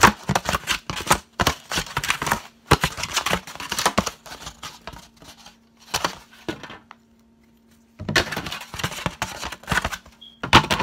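A disposable foam plate rubbed, scraped and knocked right against the microphone, giving a rapid run of crackling scrapes and clicks. It stops for about a second around seven seconds in, then starts again.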